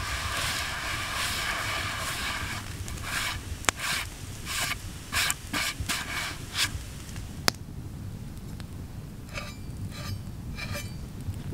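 Hand scrubbing snow across a wooden cutting board: a steady rubbing at first, then a series of separate short strokes, with two sharp clicks.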